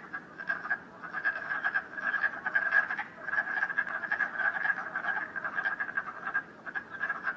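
A chorus of toads calling, many rapid croaks overlapping without a break, growing louder about a second in.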